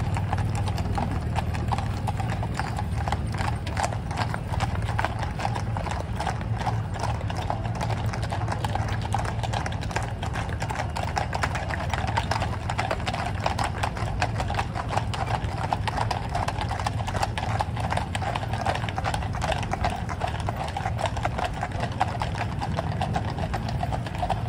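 Many horses' hooves clip-clopping on the paved road as mounted riders and a horse-drawn carriage pass, a dense, continuous patter of hoofbeats over a steady low rumble.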